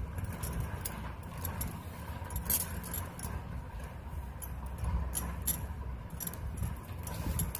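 Plastic basket-weaving wire strands clicking and rustling as they are threaded through each other and pulled into knots, in irregular small clicks.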